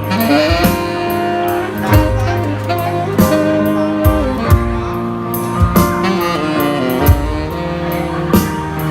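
Instrumental break of a Thai pop love song: a band plays a lead melody over bass and drums with a steady beat, no singing.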